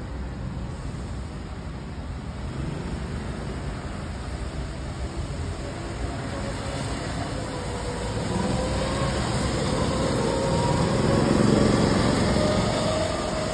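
Go-karts running round the track, their motor notes overlapping; the sound swells and its pitch glides as a kart passes close in the last few seconds.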